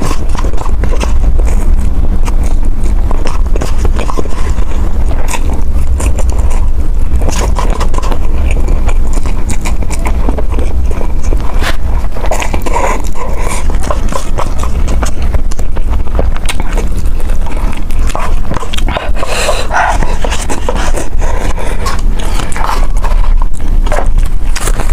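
Close-miked eating of spicy noodles: chewing and slurping with many small wet clicks, over a steady low rumble.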